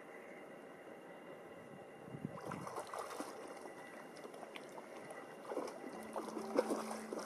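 Lake water lapping and splashing against the shore, a faint hiss at first and then an irregular run of small splashes from about two seconds in. Steady low music notes come in near the end.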